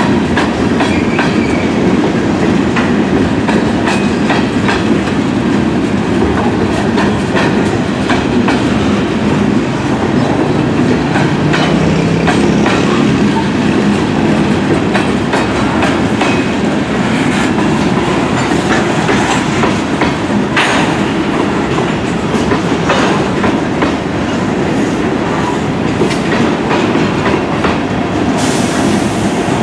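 Heavily loaded freight cars of a long Kansas City Southern train rolling past, steel wheels clacking over the rail joints with scattered metallic clanks and knocks.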